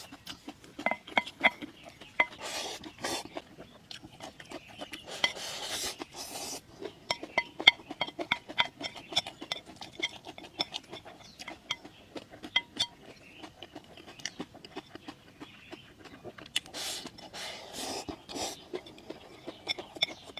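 Eating from a dish: many small clinks and taps of a utensil against the bowl or plate, some with a short ring, and a few longer scraping or rustling noises in between.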